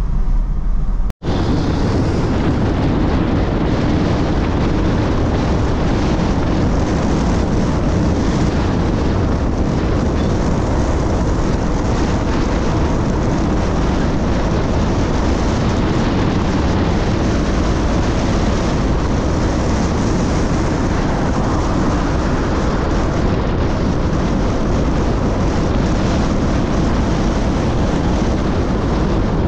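Vehicle driving at speed: steady, loud wind and road noise with no clear engine note, after a brief break about a second in.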